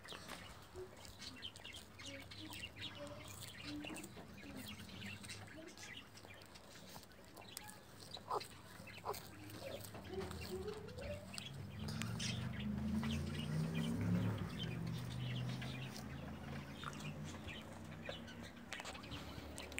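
Sulcata tortoise chewing sow thistle, a run of small crisp crunches and tearing clicks from the tough leaves. Past the middle a louder, low, pitched wavering sound comes in for about five seconds.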